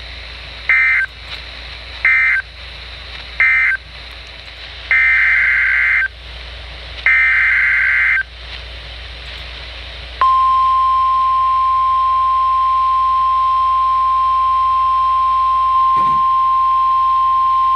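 Emergency Alert System SAME data bursts: three short raspy digital bursts, then two longer ones, closing one alert and coding the next. Then the NOAA Weather Radio 1050 Hz warning alarm tone starts about ten seconds in and holds as one steady, loud tone.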